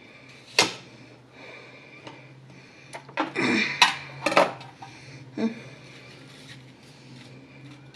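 Knife cutting a Honeycrisp apple on a tabletop: a sharp knock about half a second in, then a cluster of knocks and scraping between about three and four and a half seconds, and one more knock a second later.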